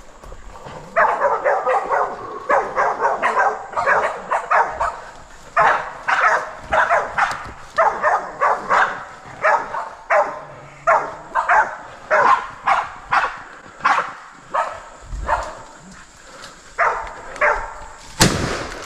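Bay dogs barking steadily at a bailed wild boar, about two barks a second, holding the pig at bay. Near the end a single loud gunshot cracks out.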